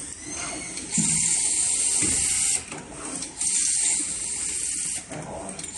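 Desktop automatic screw-fastening machine running its cycle, the gantry moving its electric screwdriver head. There are two long stretches of loud hissing, one starting about a second in and the other about three and a half seconds in.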